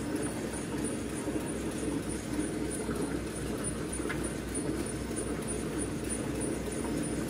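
Alcohol prep pad packaging machinery with a conveyor belt running: a steady mechanical hum with a fast, regular pulsing beat and a faint high ticking repeating at even intervals.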